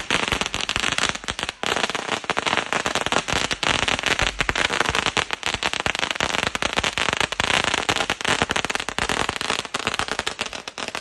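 A string of firecrackers burning on pavement: a rapid, unbroken volley of sharp bangs.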